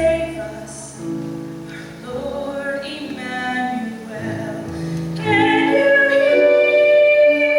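A woman singing a Christmas solo over instrumental accompaniment; about five seconds in she swells into a long, louder held note.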